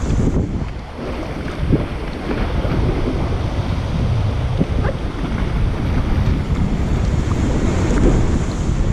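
Wind buffeting the microphone over lake water washing and lapping against a kayak, with a few short water slaps.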